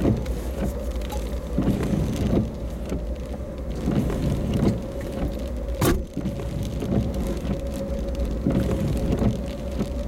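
Storm wind gusting against a car, heard from inside the cabin as a deep rumble with irregular swells, with rain on the body and a steady hum underneath. A single sharp click comes about six seconds in.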